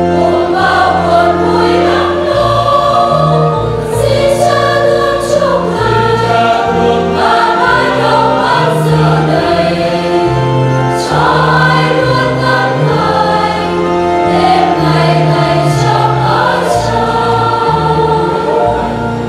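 Church choir of women singing the Vietnamese responsorial psalm (đáp ca) in unison, carried through a hand microphone.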